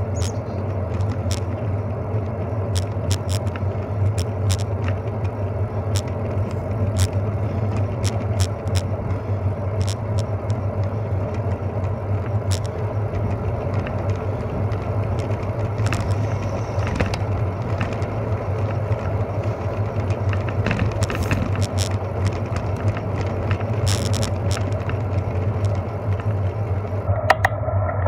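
A bicycle ridden on a paved street, heard from a camera on the bike: steady low road and wind noise, with frequent sharp clicks and rattles as it rolls over small bumps, and a louder knock near the end.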